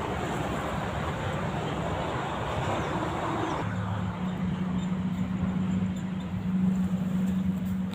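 Motor vehicle traffic running steadily. About halfway through the hiss fades and a low engine hum takes over, as of a vehicle passing close.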